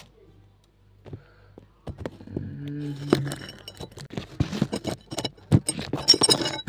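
A phone being handled and fitted onto a stand right at its own microphone: a run of sharp clicks, knocks and rubbing clatter that gets busier from about two seconds in.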